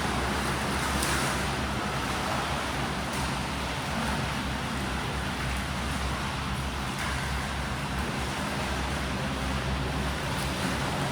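Steady, noisy ambience of an indoor swimming pool during breaststroke drills: water churning from swimmers under a constant low rumble, with a few gentle swells.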